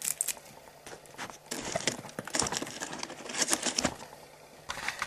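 Thin plastic strands and excess material being torn and snapped by hand off a freshly 3D-printed gear: a crackle of small snaps and clicks coming in several short runs.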